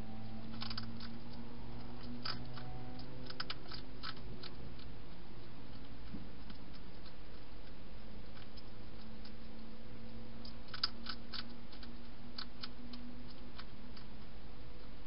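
Wild hedgehog crunching dry food: crisp clicking bites in irregular clusters, over a steady low hum.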